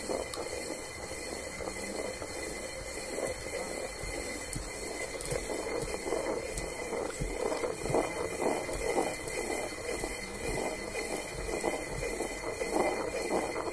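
A two-stone hand quern grinding rice into flour: the upper millstone is turned round by hand on the lower, giving a continuous scraping rumble of stone on stone with grain crunching between. It swells somewhat louder in the second half.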